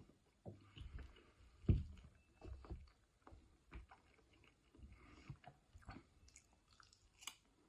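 A person chewing food close to the microphone: irregular soft, wet chews and clicks, with one louder bite about a second and a half in.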